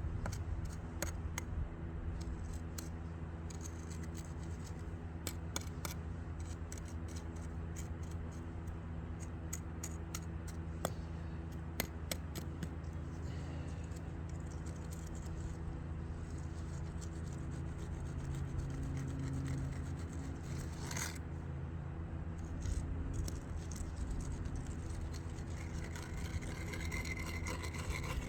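Hand tool scraping and clicking in wet concrete, working it down into a crack in brickwork, with many short irregular scrapes and taps over a steady low hum.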